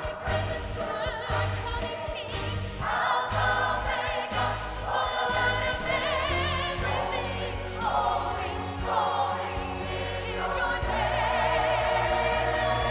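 Large mixed choir singing held chords with vibrato, moving to a new chord every second or two, over a steady low accompaniment.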